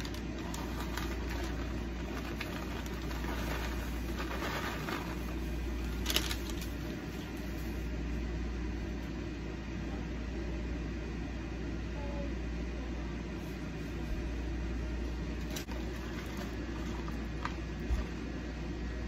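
A steady low hum, with faint rustling and a few sharp clicks as shredded cheese and bacon bits are sprinkled by hand over mashed potatoes in a slow cooker.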